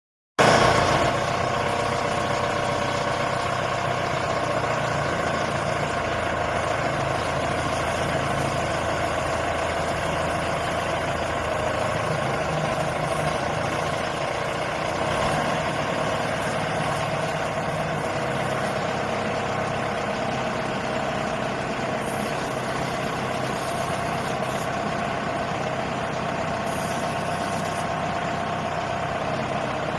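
Engine of a rubber-tracked water well drilling rig running steadily.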